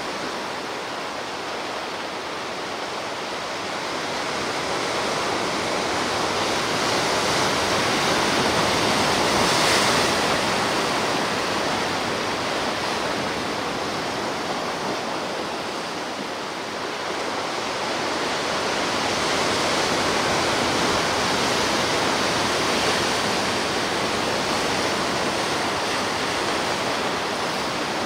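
Sea surf washing onto the shore in a continuous rush, swelling louder about a third of the way in and again about two-thirds of the way in as waves break.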